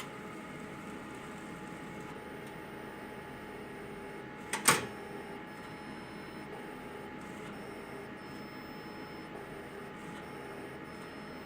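An XR-640 unit giving a sharp double click a little under halfway through, over a steady hum. The click is one of the noises that came back after the unit was repaired.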